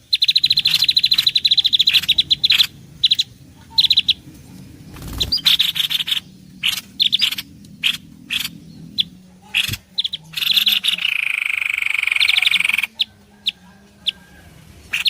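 Bird-lure (pikat) recording of small songbirds: rapid, repeated chattering trills and sharp chirps in quick bursts, with a steadier buzzing trill of about two seconds near the end.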